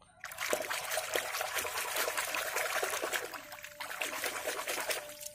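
A hand scrubbing a small plastic toy truck in a muddy puddle: steady splashing and sloshing of water, with a short lull about three and a half seconds in.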